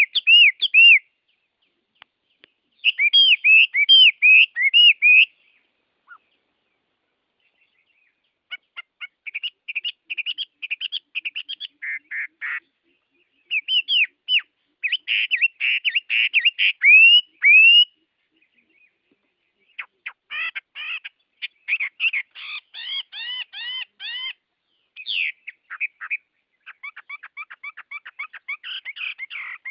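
Songbirds singing in phrases of rapid, repeated chirps, each a few seconds long, with short silent pauses between the phrases.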